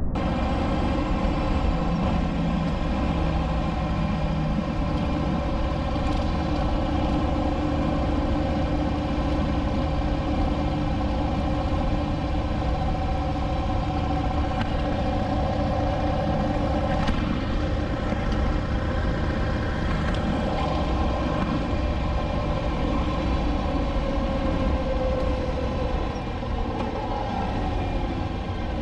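Motorcycle engine running steadily at cruising speed, with road and wind rumble. Near the end the engine note falls as the bike slows down.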